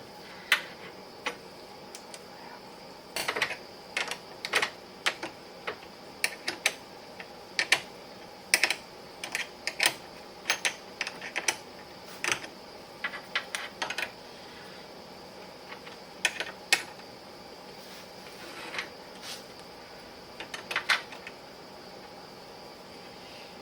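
Irregular sharp metallic clicks and taps, some in quick clusters: hand tools and small hardware being worked on a new car battery terminal while its cables are fitted and fastened. The clicks are busiest in the first half and fall off to a few scattered ones later.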